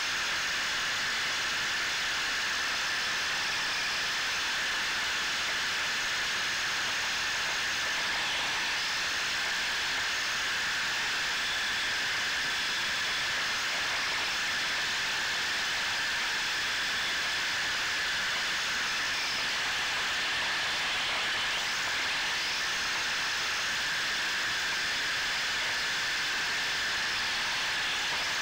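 Onboard sound of an electric Tamiya RC drift car, heard from a camera mounted on the car: a steady hiss with high, steady whining tones from the motor and gears, and a few faint rising and falling whines as the throttle changes.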